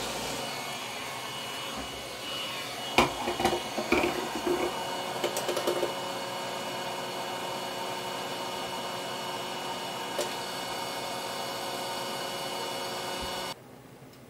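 Hot-air rework station blowing steadily, with a few clicks and taps from about three to six seconds in. The blower cuts off abruptly near the end.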